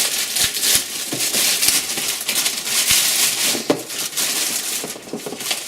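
Plastic packaging rustling and crinkling continuously as it is handled and pulled open to unwrap a keyboard.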